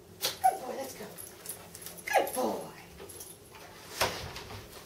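A dog giving two short vocal sounds that fall in pitch, about a second and a half apart, with sharp clicks around them. A knock with a low thud about four seconds in, as the front door swings shut.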